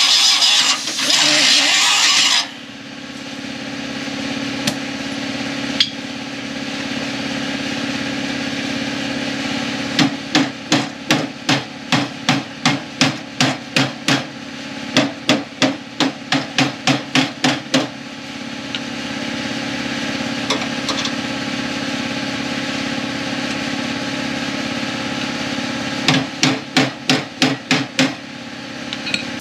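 A small cut-off wheel grinds through steel for about two seconds and stops suddenly. Then a hammer taps the sheet-steel rail of a Ford Mustang's inner fender in quick, even runs of strikes, about three or four a second, over a steady low hum.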